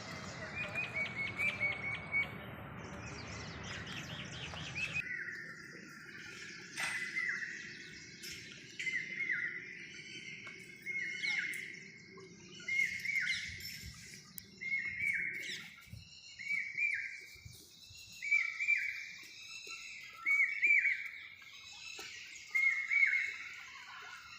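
Birds chirping. First comes a quick run of short, high chirps. After a sudden change about five seconds in, a bird repeats a short, downward-curving call every second and a half to two seconds.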